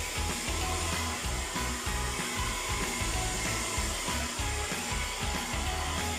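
AOKAI ion hair dryer running steadily, blowing with an even whooshing hiss, with background music underneath.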